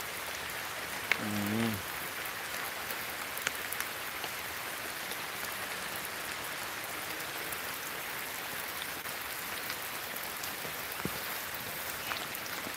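Steady rain falling on coffee bushes and their leaves: an even hiss throughout, speckled with scattered drop ticks.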